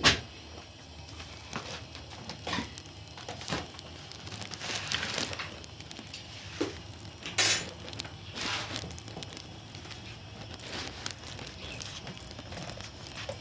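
Scattered light knocks and clinks with a few short rustling noises. The sharpest knock comes right at the start, and a louder noisy burst comes about seven and a half seconds in.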